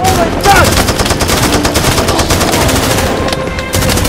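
Rapid automatic rifle fire: long strings of shots in quick succession.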